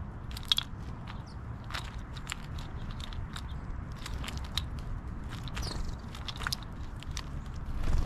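House sparrows pecking at seeds and shells in and around a feeder dish close to the microphone: many sharp, irregular clicks and crunches, with a few short chirps. A brief flutter of wings near the end.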